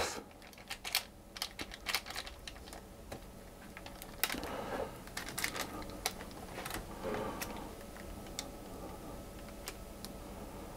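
Silicone spatula spreading and levelling thick fruit-cake batter in a parchment-lined loaf tin: soft, irregular scrapes and small clicks.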